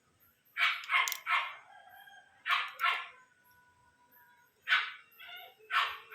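A dog barking: about eight short barks in small groups of two or three.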